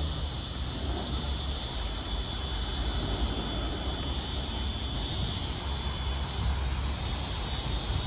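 Steady outdoor background: a low rumble like distant traffic or an aircraft overhead, under a continuous high buzz of insects with a faint soft pulse about once a second.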